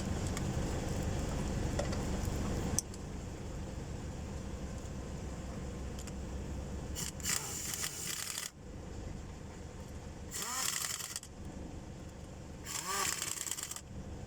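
A steady mechanical hum that cuts off suddenly about three seconds in, then three short spells of metallic ratcheting, about a second each, from a ratchet wrench working a diesel glow plug.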